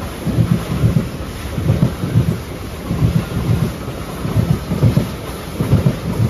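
Freight train of rail-carrying flat wagons rolling past, its wheels giving a repeating run of low thuds in groups about once a second over a steady rumble.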